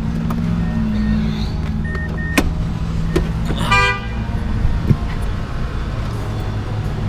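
Mazdaspeed 6's turbocharged 2.3-litre four-cylinder engine running steadily while driving. A brief high tone sounds about halfway through.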